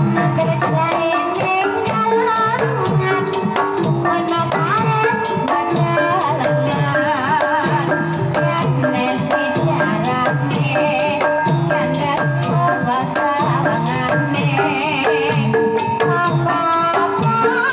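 Banyumasan tayub gamelan music: a kendang hand drum beating a steady rhythm under bronze kettle gongs struck with mallets, with a wavering melodic line above.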